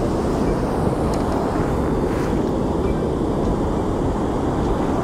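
Wind buffeting the microphone: a steady, loud rushing noise over the open water.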